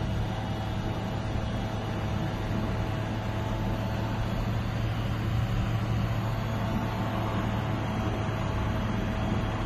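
Steady city background noise: a traffic hum with a constant low drone and no breaks.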